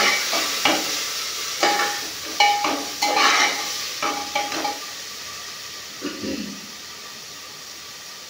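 Flat metal spatula stirring and scraping onion-tomato masala in a pressure cooker, each stroke clinking against the metal pot, over a steady sizzle of frying. The stirring stops about five seconds in, leaving a quieter sizzle.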